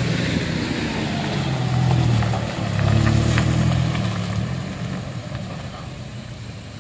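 A Toyota MPV driving past on a loose gravel road: its engine and tyres grow louder as it passes close, about two to three seconds in, then fade as it pulls away.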